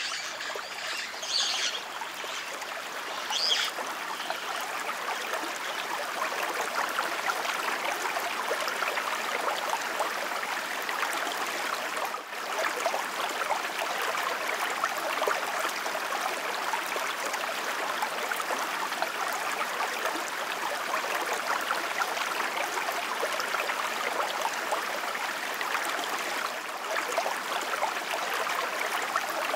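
Steady rush of running water, like a brook, with a few short bird chirps in the first few seconds.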